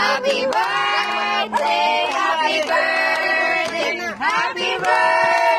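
A group of people singing a birthday song together, mixed voices holding notes of about half a second to a second each.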